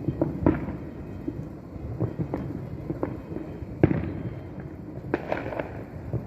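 Aerial fireworks bursting in an irregular series of bangs and pops, the loudest about four seconds in.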